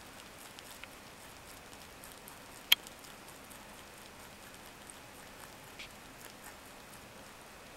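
Rabbit chewing carrot leaves at close range: faint, sparse crisp crunching clicks, with one sharp click about three seconds in.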